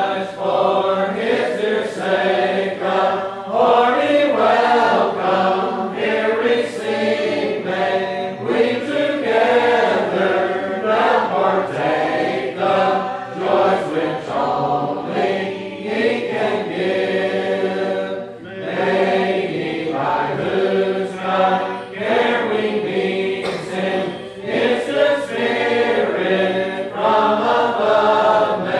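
A church congregation singing a hymn a cappella, many voices together in slow, held notes with brief breaks between phrases.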